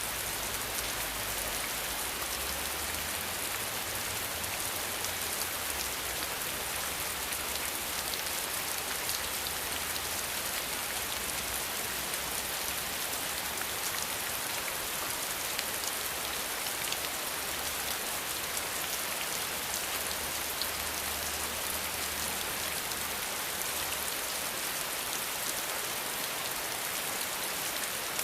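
Steady heavy rain: a dense, even hiss of countless drops striking surfaces, with fine individual drop ticks through it.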